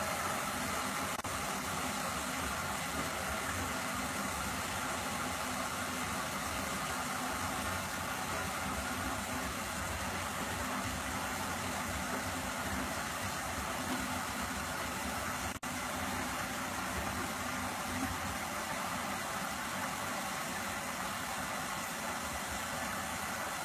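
Washing machine running, a steady mechanical hum and whir, with a brief click about two-thirds of the way through.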